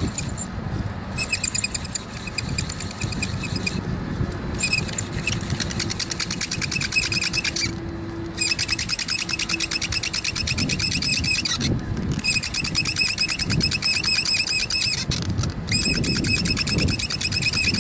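Hand-drill fire spindle with a bamboo tip squeaking as it is twirled back and forth against a wooden hearth board. It comes in runs of about three seconds, each broken by a short pause while the hands go back up the spindle, over a low rubbing from the palms.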